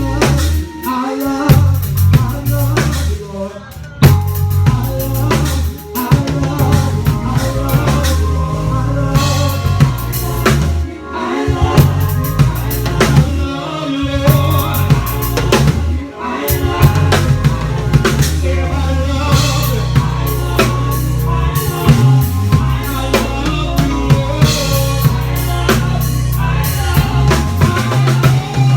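A band playing an instrumental passage: bass guitar lines stepping from note to note under a drum kit and keyboard chords, with a few brief breaks.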